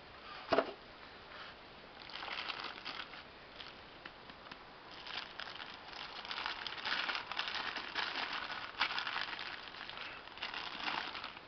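Packaging crinkling and rustling as it is handled, with one sharp knock about half a second in.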